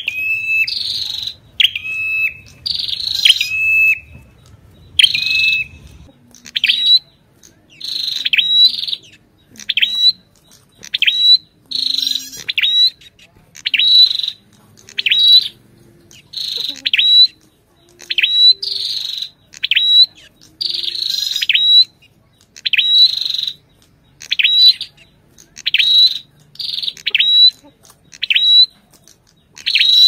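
Ashy tailorbird calling over and over: short, sharp, high notes about once a second. In the first few seconds the calls come a little slower and settle on a lower held note, then they quicken into a steady run of clipped rising notes.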